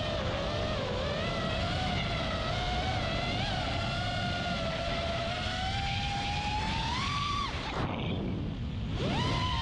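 FPV quadcopter's four brushless motors (Lumenier 2206 2450kv on 5-inch three-blade props) whining, the pitch wandering up and down with the throttle, over wind rushing on the onboard camera's microphone. About seven and a half seconds in the whine glides down and fades as the throttle is chopped for a dive, then snaps back up near the end.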